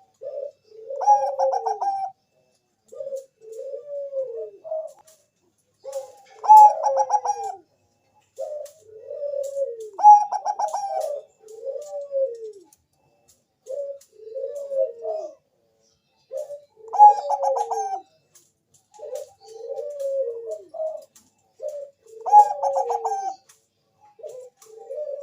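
Bangkok-bred zebra dove (perkutut) cooing steadily. Its song repeats short falling coos, with a louder, rippling phrase every few seconds.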